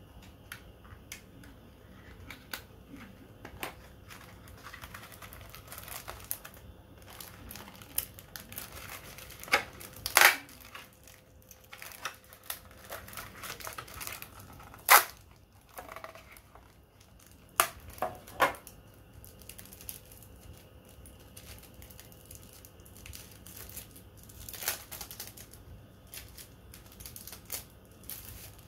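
Product packaging being handled and opened: crinkling and tearing of paper and plastic, with scattered sharp clicks and knocks, the loudest about a third and halfway through.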